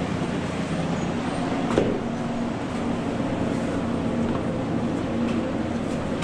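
Magic-carpet conveyor belt running inside a ski tunnel: a steady mechanical hum with a low droning tone, and a single knock about two seconds in.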